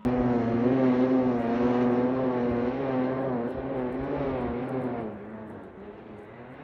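Snowmobile engine running hard at high revs, its pitch steady with a slight waver, cutting in abruptly and fading after about five seconds.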